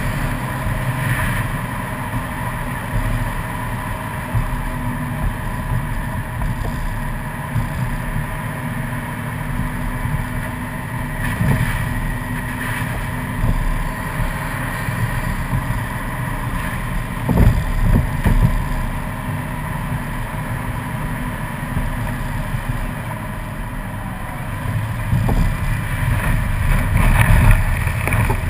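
Subaru WRX driving on a wet, slushy road: a steady engine and tyre rumble, with a couple of low thumps from bumps around the middle, and the engine growing louder near the end.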